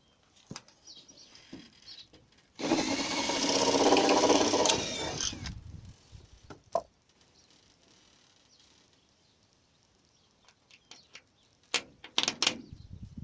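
Cordless power drill driving a screw into wood, running for about three seconds, then a few clicks and knocks of handling near the end.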